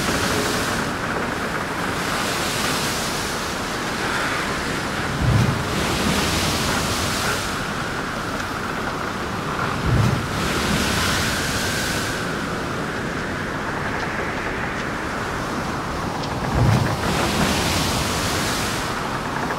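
Storm sound of wind and crashing waves: a steady rush that swells and eases, with three heavy low thuds about five seconds apart and a faint wavering whistle of wind.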